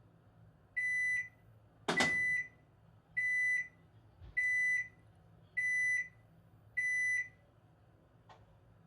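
Panasonic NA-FA80H3 washing machine's buzzer sounding six evenly spaced high beeps, about one every 1.2 seconds, typical of an end-of-cycle signal. A sharp clack comes with the second beep, and a faint click follows near the end.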